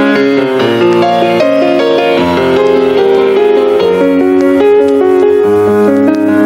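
Background piano music with a quick, continuous run of notes over held chords.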